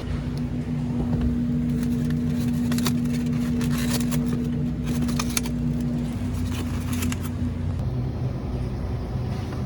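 A steady low motor hum, fading out about three-quarters of the way through, with scattered light clicks and taps over it in the middle.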